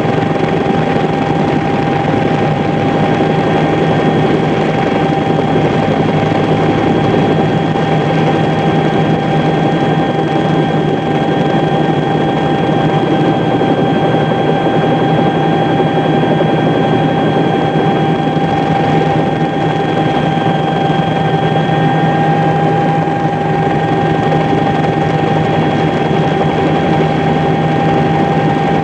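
Steady engine drone with a constant high whine, unchanging throughout, with no blasts or impacts.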